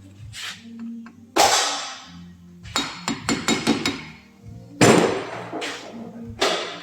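Background music with a low bass line that steps from note to note, over loud clanks and knocks with a short ring after each, including a quick run of them about three seconds in.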